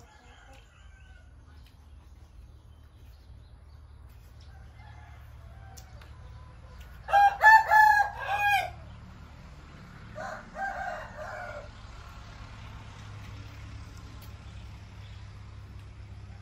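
A rooster crows once, loud, about seven seconds in, and a second, quieter crow follows a few seconds later.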